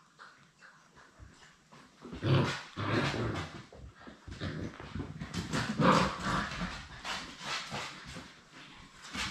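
Seven-week-old Labrador Retriever puppies vocalizing as they wrestle, starting about two seconds in and going on and off after that.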